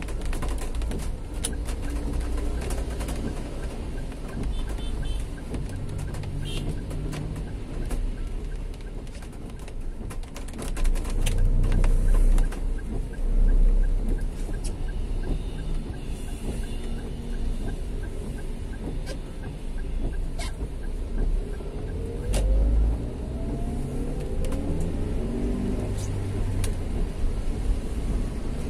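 City street traffic: cars and motorbikes running and passing, with a louder vehicle going by about a third of the way in. An engine revs up in the last third, and many short ticks sound throughout.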